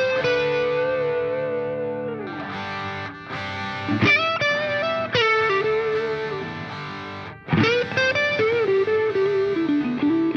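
Background music: a slow melody of long held notes that slide between pitches, breaking off briefly twice.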